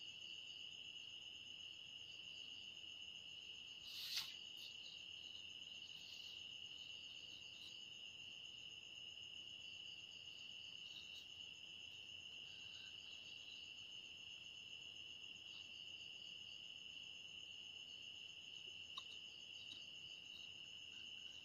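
Crickets trilling steadily in the background, a constant high-pitched drone. About four seconds in there is a short scrape or rustle.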